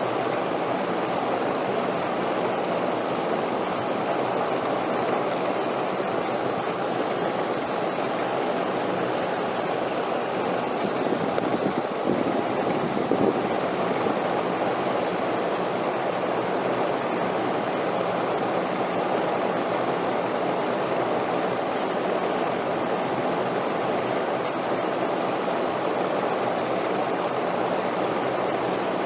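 Steady wind noise, a continuous rushing hiss that swells briefly about twelve seconds in.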